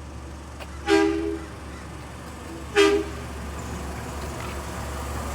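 Garbage truck horn honking twice, the first honk about half a second long and the second shorter, over the steady low rumble of an idling engine.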